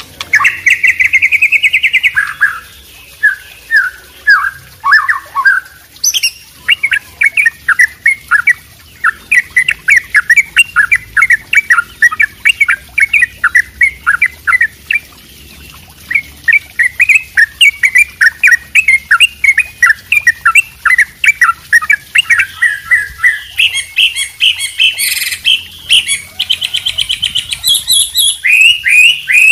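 Mixed songbird recording of white-rumped shama, yellow-vented bulbul and wambi: a near-continuous stream of quick chirping and trilling notes, with a short lull about halfway and a higher, faster trill near the end.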